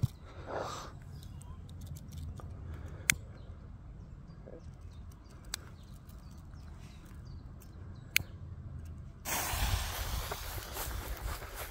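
A Viper 30 firecracker's fuse being lit with a lighter: a short fizz as the fuse catches, then a few sharp clicks. From about nine seconds in there is a louder steady rustling noise.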